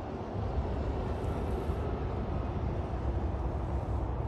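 A vehicle on the move: a steady low rumble of engine and road noise.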